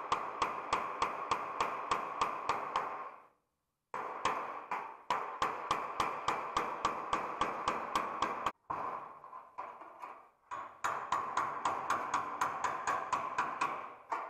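Hammer blows on a sheet-steel bonnet panel, about four a second, the metal ringing after each strike. The blows stop twice, briefly, and come unevenly for a couple of seconds in the middle.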